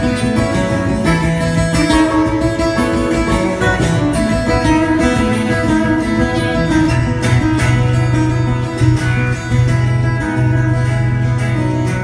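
Two acoustic guitars playing live, an instrumental stretch of picked melodic notes over held low bass notes that grow stronger in the second half.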